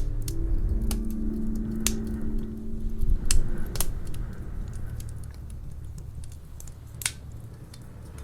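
Wood fire crackling in a fireplace: scattered sharp pops and snaps over a low rumble, with one louder pop about seven seconds in.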